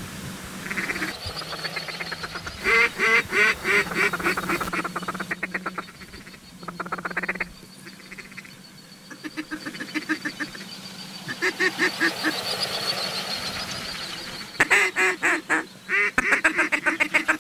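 Duck and goose calling: runs of rapid quacks and honks, coming in bursts with short gaps, the loudest and densest near the end. A faint steady high tone runs under most of it.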